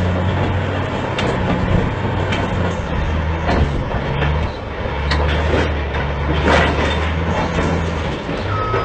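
Caterpillar crawler bulldozer's diesel engine running under load, its note dropping and rising again about halfway through, with scattered clanks and knocks as the machine works against the boulders.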